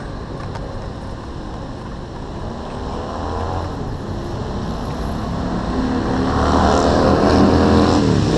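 Road traffic: a car passing close by, its engine getting steadily louder and then dropping in pitch as it goes past near the end.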